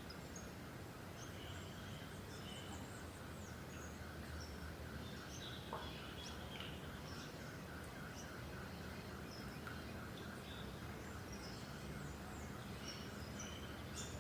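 Several birds chirping with short, high calls scattered throughout, over a steady background hiss and a faint, fast, even pulsing lower in pitch.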